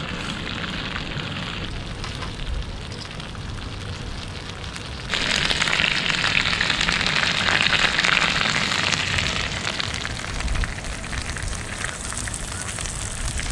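Slipper lobster tails sizzling in butter and garlic in a frying pan on a portable gas stove, a steady crackling fry. About five seconds in the sizzle turns suddenly louder and stays so.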